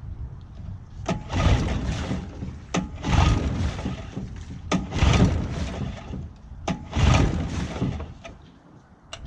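Recoil pull-starter on a 15-horsepower Johnson outboard motor being pulled four times, about two seconds apart: each pull is a click followed by about a second of the cord running out and the engine turning over. The engine does not yet fire.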